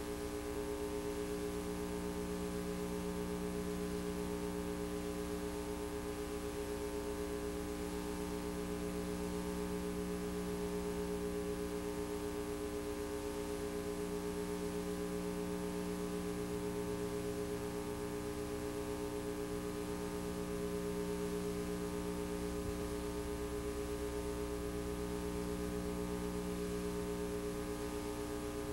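Steady electrical hum made of several fixed tones over a faint hiss: line noise from a VHS transfer whose tape carries no recorded sound.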